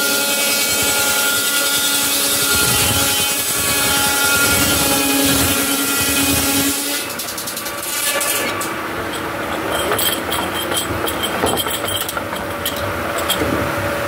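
Large circular sawmill blade ripping a wooden plank lengthwise: a loud, steady saw noise with a whine in it. About seven seconds in the cutting sound drops away and it turns lighter, with scattered short clicks while the blade keeps running.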